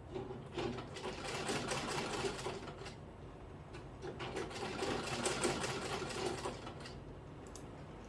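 Sewing machine stitching a zip onto fabric in two runs, about three seconds each, with a short pause between.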